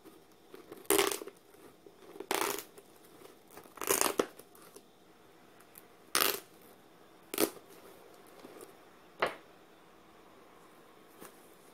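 A knife cutting the packing tape along the seam of a cardboard shipping box, in six short strokes a second or two apart.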